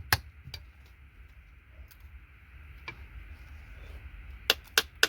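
Sharp clicks of something small and hard: two right at the start, then a quick run of four or five about four and a half seconds in, over a steady faint hiss.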